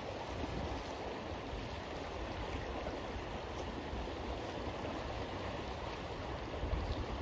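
River water running steadily, an even rushing. Wind starts to buffet the microphone near the end.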